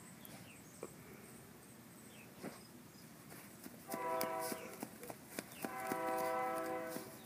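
A horn sounds two long, steady blasts, each a chord of several tones, about four and six seconds in. Soft clicks and rustles come from a small dog sniffing in the grass.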